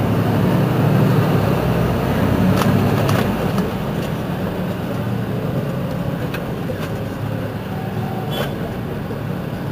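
Mercedes-Benz Citaro C2 city bus's rear-mounted engine idling steadily, a little louder in the first few seconds, with a few short clicks.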